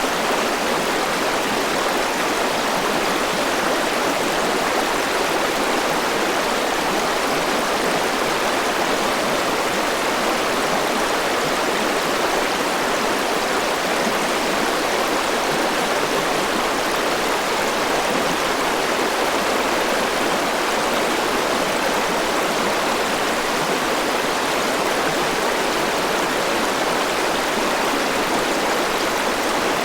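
Forest river rushing steadily over rocks, a constant, unchanging wash of flowing water.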